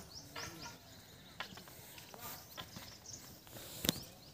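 Quiet outdoor scene: footsteps on a brick-paved path, a few short high chirps from birds, and scattered light clicks, with one sharp click just before the end.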